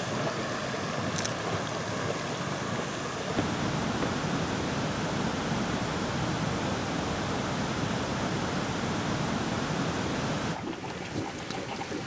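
Steady rushing hiss of steam venting from hot-spring vents. It grows louder about three seconds in and drops off suddenly near the end.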